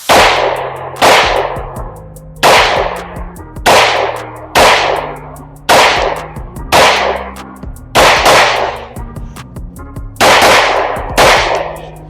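Glock 19C, a 9mm pistol with a factory-ported compensated barrel, fired at a steady, deliberate pace: about ten shots roughly a second apart, each shot followed by a short ringing decay.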